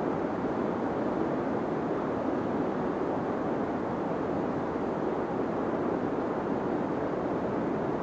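Deep white noise for sleep: a steady, even hiss with no changes or events, low and muffled, its treble rolled off.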